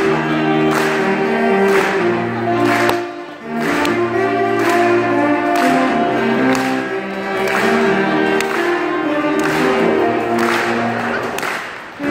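Saxophone quartet playing in chords, with a baritone saxophone carrying the bass line under the higher saxophones. The sound drops briefly between phrases about three seconds in and again near the end.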